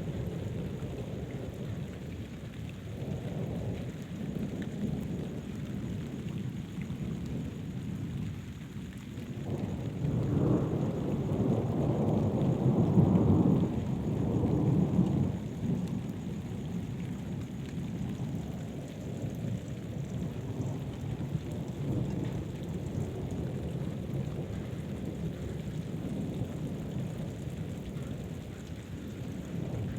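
Thunderstorm: steady rain with rolling thunder, a long low rumble swelling about a third of the way in, peaking and fading over roughly six seconds.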